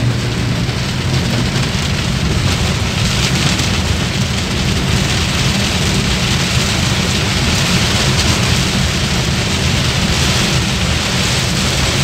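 Heavy rain drumming on a car's roof and windscreen, heard from inside the cabin as a dense, steady hiss over the low rumble of the car driving.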